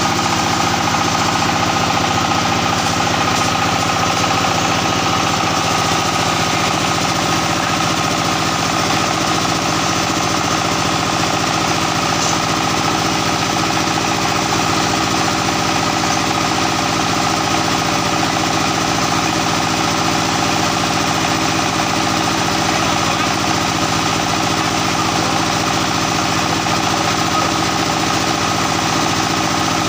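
The 16.5 HP single-cylinder direct-injection diesel engine of a plastering machine running steadily, with a fast, even knocking beat.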